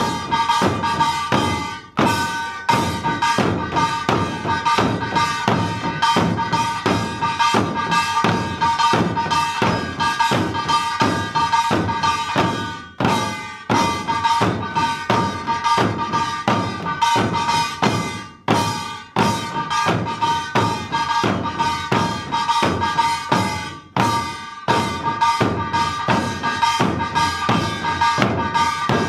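Korean buk barrel drums struck with sticks in a fast, driving rhythm, with a small brass kkwaenggwari gong clanging steadily over them. The beat breaks off for a moment about four times.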